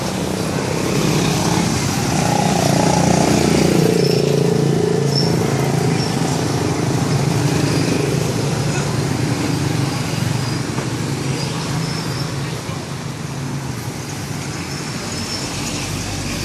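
Busy street ambience: steady motor traffic with motorbike engines and a low engine hum, with voices mixed in, loudest in the first half.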